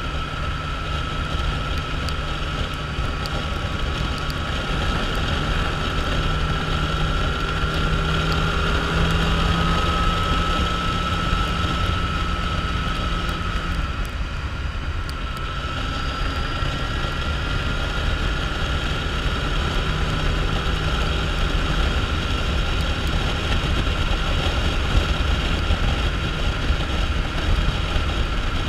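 Motorcycle engine running steadily at road cruising speed, with wind rushing over the microphone. The engine note dips briefly about halfway through, then picks up again.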